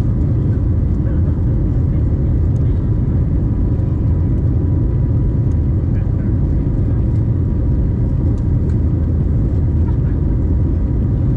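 Steady cabin drone of an Airbus A321neo in its climb after takeoff, its CFM LEAP-1A engines and the airflow heard from inside the cabin over the wing. The drone is deep and even, with faint steady tones above it.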